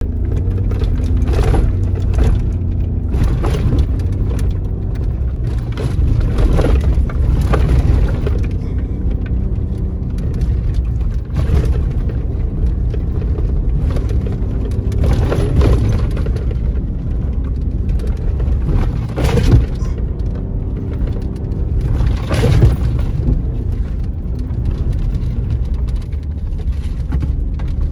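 Inside the cab of a Ford Raptor pickup on a rough dirt track: a steady low rumble from the engine and tyres, broken every few seconds by sudden thumps and rattles as the truck hits bumps and dips. The hardest jolts come about two-thirds of the way through.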